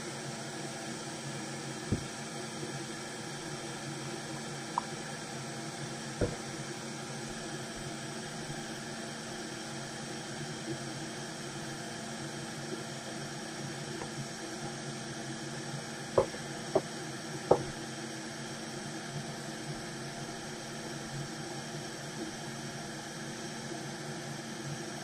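Steady hiss with a few light clicks and taps of small hand tools such as tweezers on a repair bench, three of them close together about two-thirds of the way through.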